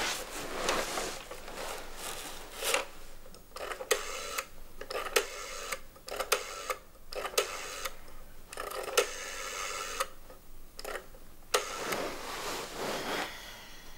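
Rotary-dial telephone being dialed: the finger dial is wound round and whirs and clicks back, digit after digit, in a series of separate runs about a second long.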